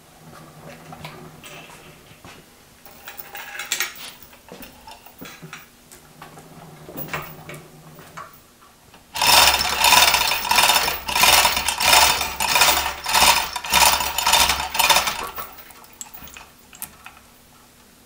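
Chain hoist being worked, with metal chain rattling in a loud run of rhythmic pulls, about one a second, for some six seconds starting about nine seconds in, as the mill's knee is hoisted. Quieter metal clinks and handling of the chain and fittings come before it.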